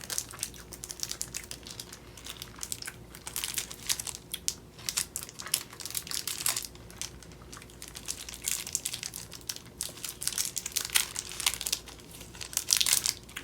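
Crinkling and tearing of a Heath bar's candy wrapper being opened by hand: a run of irregular rustles and crackles, louder in a few clusters.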